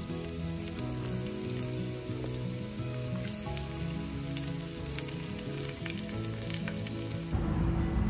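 Sliced onion sizzling and crackling in hot oil in a frying pan, under soft background music. Near the end it cuts abruptly to a louder, noisier sound.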